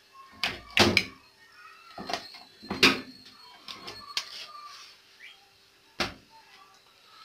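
Washing machine door being shut and opened, its latch hook clacking in the door lock: four sharp clacks, the last after a longer pause. The freshly oiled hook catches and releases smoothly, a sign that the door-lock fault is repaired.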